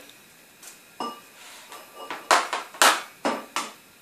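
Kitchen bowls and utensils knocking and clattering on a table: about five short, sharp knocks, most of them bunched in the second half.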